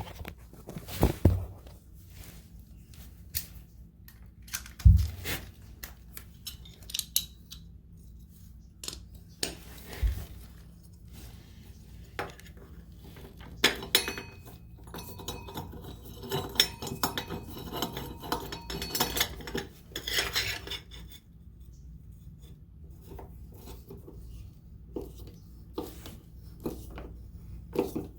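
Irregular metallic clinks and knocks from metal plumbing fittings and hand tools being handled during a tub waste-and-overflow installation, with a few heavier thumps about 1, 5 and 10 seconds in and a busier run of clinking in the middle.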